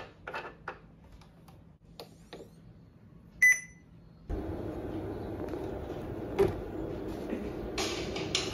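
BenQ XGA projector: a few light handling clicks, then one short electronic beep about three and a half seconds in. Just after the beep, a steady whirring hum of its cooling fan begins.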